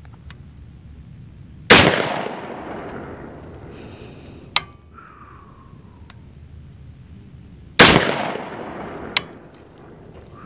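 Two AR-15 rifle shots about six seconds apart, each with a long echoing tail. Shorter, sharper cracks follow each shot about three seconds and about a second and a half later.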